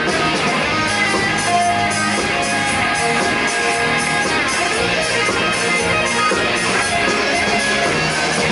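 Live band playing amplified electric guitar and bass guitar through stage amps, with drums keeping time.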